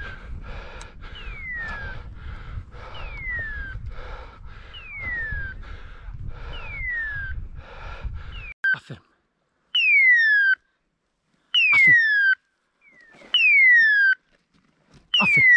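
A dog's beeper collar sounding its point-mode call: a falling, hawk-scream-like whistle repeated about every two seconds, the signal that the pointer is holding point. The calls come loud and clear after the background noise drops away about halfway through.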